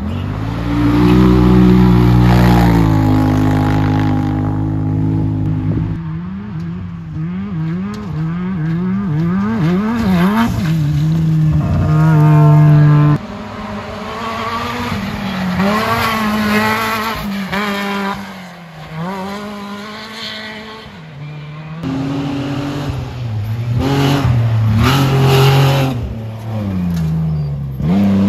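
Racing side-by-side UTV engines revving hard as the vehicles tear past on a dirt course. The pitch climbs and drops again and again with throttle and gear changes, and the sound switches abruptly a few times as different vehicles come through.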